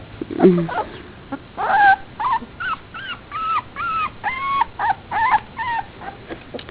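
Four-week-old pit bull puppies whimpering: a string of short, high, rising-and-falling whines, about two a second.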